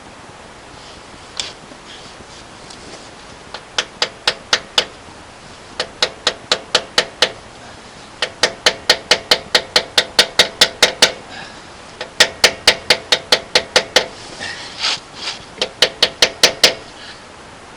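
Quick hammer blows on metal, about five a second, in several bursts separated by short pauses, each blow ringing briefly; the hammering is being used to free broken starter bolts seized in a Chevy 5.7 V8's engine block.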